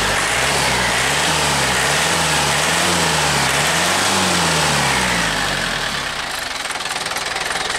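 Yanmar EF494T tractor's four-cylinder diesel engine being revved up and down about four times by the throttle, responding quickly, then dropping back to a steady run near the end.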